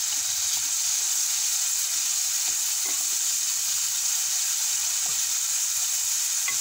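Chopped onions and green peppers frying in oil in a metal pan, a steady sizzle, with a wooden spoon stirring through them and lightly scraping the pan.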